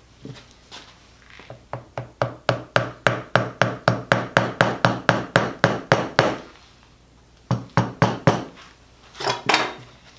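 A mallet striking a leather stitching chisel (pricking iron), driving its prongs through layers of leather to punch stitch holes. A quick, even run of about twenty sharp taps, about four a second, then a pause and a few more taps.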